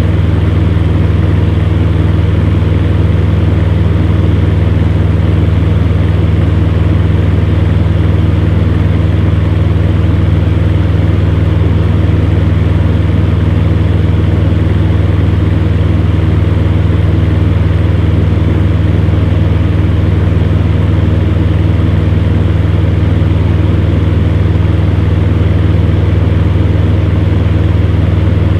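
Electric fan heater running steadily: a strong, constant low hum from the motor under an even rush of blown air.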